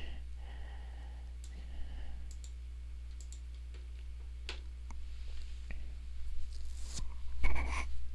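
A few scattered computer mouse clicks over a steady low electrical hum, with a short, louder noise near the end.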